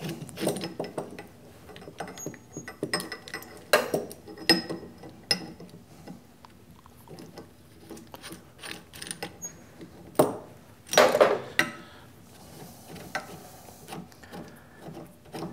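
Steel gear puller being adjusted and fitted over a lathe motor's aluminium pulley: scattered metallic clicks, clinks and scrapes as the jaws and forcing screw are worked, with louder knocks about four seconds in and again around ten to eleven seconds in.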